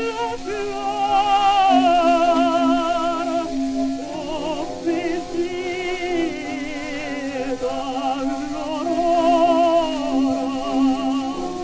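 Mezzo-soprano singing an operatic aria with wide vibrato over accompaniment, on an early acoustic gramophone disc with faint surface hiss. The phrases break briefly about four and ten seconds in.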